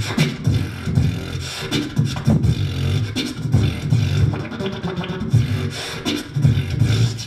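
Beatboxing through a handheld microphone: deep bass kicks about twice a second, with sharp clicks and snare sounds between them, in a steady beat.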